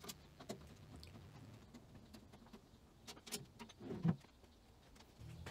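Faint, scattered light clicks and taps from a screwdriver and bolts being worked on a steel drawer. About four seconds in there is a soft bump as the drawer is pushed shut on its ball-bearing slides.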